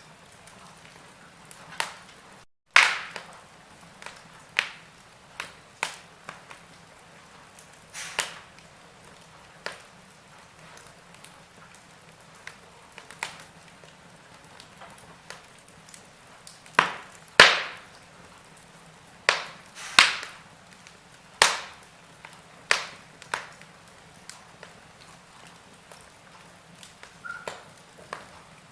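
Wood fire crackling in a fireplace: irregular sharp pops and snaps at uneven gaps over a faint steady hiss, with the loudest cracks bunched about two-thirds of the way through.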